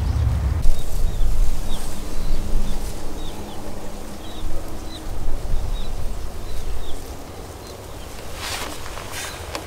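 Wind rumbling and buffeting on the microphone, with a small bird chirping over and over in short high notes. The wind drops away about seven seconds in, and there is a brief rustle near the end.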